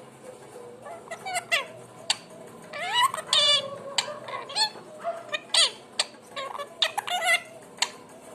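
Pet parrot making a quick run of varied calls from about a second in: short chirps and squawks, rising and falling whistled glides, and sharp clicks.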